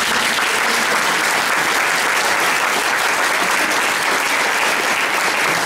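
An audience applauding, dense steady clapping.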